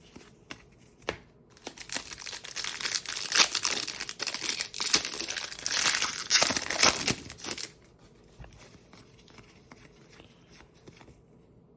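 A 2024 Panini Contenders football card pack wrapper being torn open and crinkled, a dense crackling from about a second and a half in until nearly eight seconds in, then only faint handling clicks.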